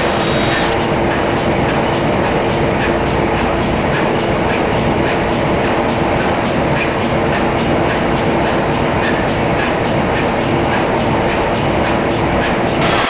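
Production-line machinery running: a loud, steady mechanical rumble with a steady hum and a regular ticking, roughly three ticks a second, as products are carried past the laser coder.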